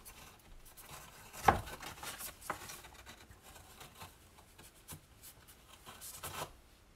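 Damp terry face towel rubbing over a chicken eggshell, a faint soft rustle as the shell is wiped clean after sanding, with a sharp tap about one and a half seconds in and a few lighter ticks.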